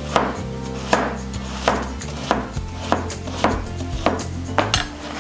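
A chef's knife slicing through a cabbage wedge on a plastic cutting board: about eight cuts at a steady pace, each ending in a sharp knock on the board.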